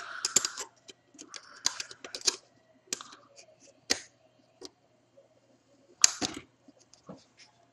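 Sharp metal clicks and short scrapes of a pin spanner wrench being fitted and shifted on the threaded retaining nut of a Celestron CG-4 mount's right ascension axis as the nut is worked loose. The clicks come scattered over several seconds, with a quiet gap after about four seconds.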